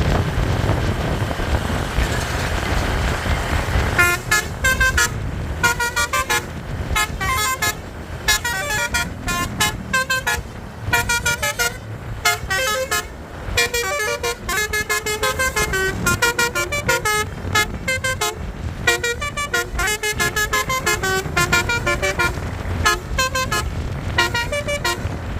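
A tour bus's Basuri telolet horn, a multi-trumpet air horn, plays a fast melody of short notes at changing pitches in quick runs with brief breaks. It starts about four seconds in over the rumble of the bus engine.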